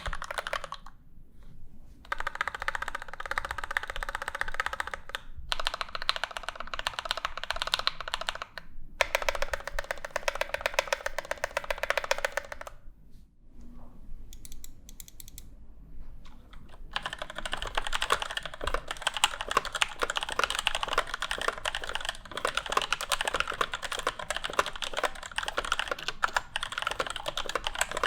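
Mechanical keyboard typing: a NovelKeys NK65 aluminium board with lubed and filmed C³ Tangerine V2 linear switches, its larger modifier keys pressed in three rapid runs of about three seconds each. After a short break, from a little past halfway, typing continues on a pre-built off-the-shelf keyboard, which sounds clackier with loud stabilizer wire rattle.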